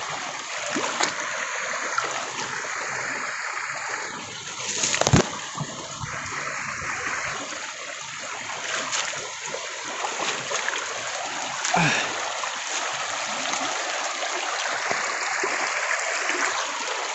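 Shallow river running over rocks with a steady rushing hiss, broken by a few sharp splashes of footsteps in the water, the loudest about five seconds in and another near twelve seconds.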